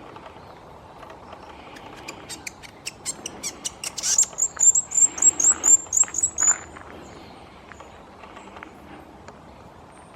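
A small bird calling: a quickening run of sharp high ticks that turns, about four seconds in, into a fast series of about ten high, down-slurred notes, stopping about six and a half seconds in.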